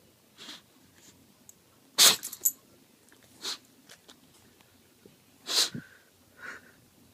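Bulldog sneezing over and over: short, sharp sneezes, the loudest about two seconds in and again about five and a half seconds in, with softer ones between.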